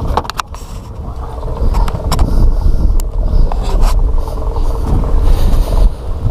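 Steady low rumble aboard a small fishing boat, with a few sharp knocks and scrapes of gear being handled on deck in the first few seconds.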